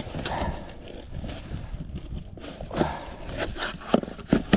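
Cardboard box being opened by hand: uneven scraping and rustling of cardboard and packing, with a few sharp knocks near the end.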